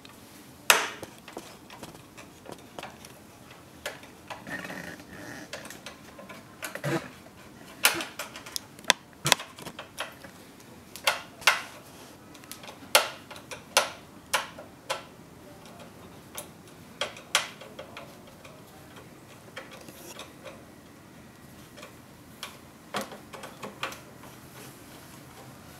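A screwdriver turning out the small screws that hold an oil-filled heater's sheet-metal front cover to its fins: irregular sharp metallic clicks and ticks, busiest in the middle.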